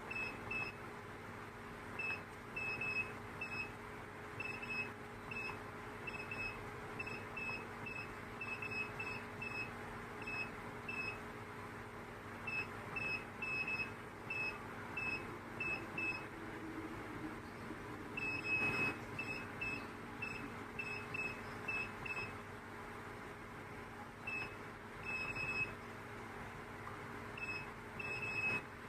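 Short, high electronic beeps in irregular clusters, the key-press beeps of the control panel on an XX-380D CNC gemstone grinding machine, with one longer beep about two-thirds of the way through. A steady low machine hum runs underneath.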